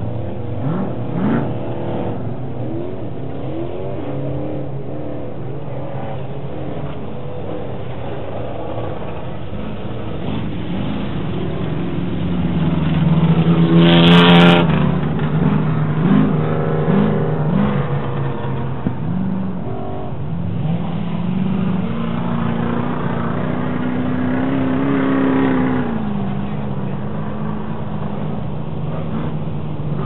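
Short-course off-road race trucks' engines revving and running as they race around a dirt track. The note rises and falls with the throttle. It is loudest about halfway through as one passes close, followed by a few quick throttle blips, and one engine holds a long rising note that drops away near the end.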